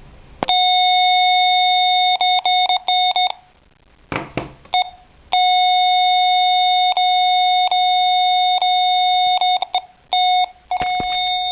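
Electronic device's speaker beeping while the unit is switched off: one steady high tone, held for seconds at a time and broken by short, irregular gaps and quick on-off stutters, with a pause of about two seconds near the middle. A malfunction.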